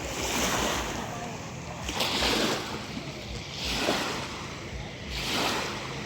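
Waves washing in at the water's edge, the wash swelling and fading in repeated surges about every second or so, with wind on the microphone.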